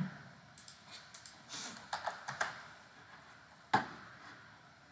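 Computer keyboard keys clicking in scattered, irregular taps, with one sharper click near the end.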